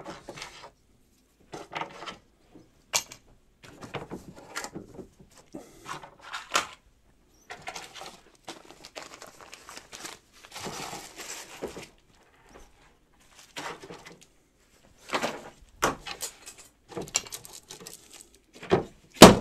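Small parts and plastic bags of screws being handled and dropped into a plastic Systainer storage case: scattered rustling and crinkling of bags with light clicks and knocks on hard plastic. A longer stretch of crinkling comes about halfway through, and a sharp, louder knock comes near the end.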